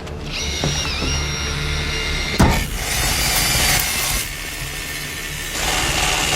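A high, steady mechanical whine with a brief dip in pitch, cut by a sharp bang about two and a half seconds in, then a rushing noise.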